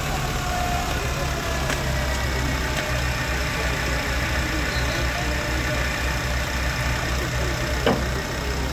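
A motor vehicle engine idling steadily, with one short sharp knock near the end.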